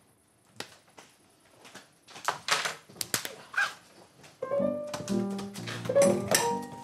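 Upright piano being played: after a few quiet seconds of clicks and knocks, chords are struck from about four and a half seconds in.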